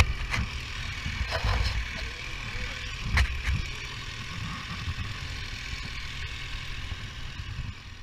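Sport motorcycle engine running as the bike rides off, with a steady hiss of wind on the on-bike microphone. Two sharp knocks, one at the very start and one about three seconds in, are the loudest moments.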